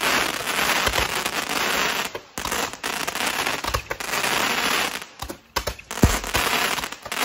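Several handheld firework tubes firing together: a continuous hissing crackle of sparks, broken by occasional dull pops, the loudest about six seconds in. The crackle drops away briefly twice.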